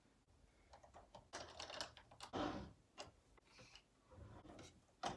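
Faint, irregular clicks, taps and scuffs of hands handling a plastic magnetic cabinet lock and its magnet key against a wooden drawer.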